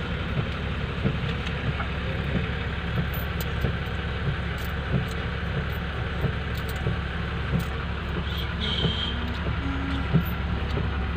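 Vehicle engine idling steadily, heard from inside the cabin while stopped at a drive-through, with small clicks and a short high beep about nine seconds in.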